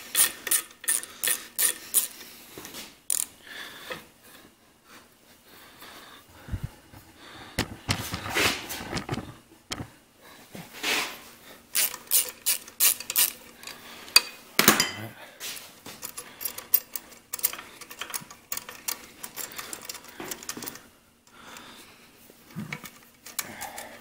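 Hand ratchet wrench clicking in quick runs, with scattered metal clinks and knocks, as bolts are worked loose inside the crankcase of a Clinton small engine.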